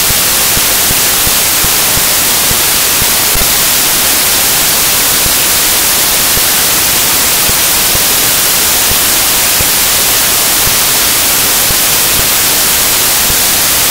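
Loud, steady static hiss, even and unbroken, strongest in the high end, with no other sound over it.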